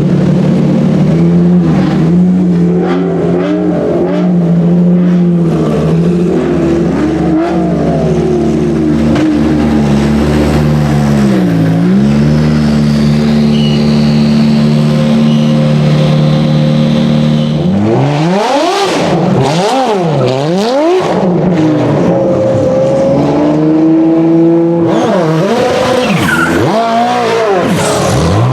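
Ferrari P80/C's 3.9-litre twin-turbo V8 idling steadily, then revved hard in quick rising and falling sweeps about two-thirds of the way in and again near the end.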